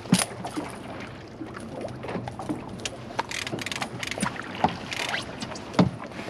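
Boat outboard running steadily at slow trolling speed, with scattered sharp clicks and knocks as a hooked Husky Jerk lure is worked free of a walleye's mouth.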